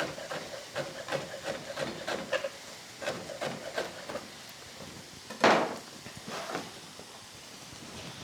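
Kitchen knife chopping a chili finely on a chopping board, quick knocks at about four a second that stop about four seconds in. About five and a half seconds in comes one louder, longer sound, followed by a couple of lighter knocks.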